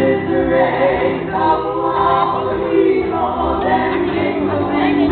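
Live band music: several voices singing together over electric guitar accompaniment, played through PA speakers.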